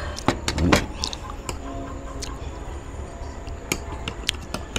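Metal spoon and fork clinking and tapping against plates as food is served: a handful of short, sharp clinks spread through, the loudest under a second in.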